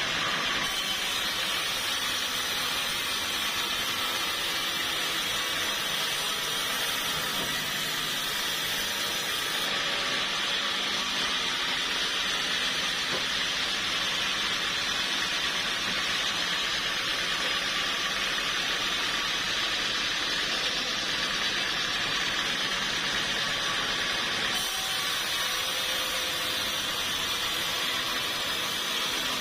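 Sawmill saw running with a steady, unbroken noise.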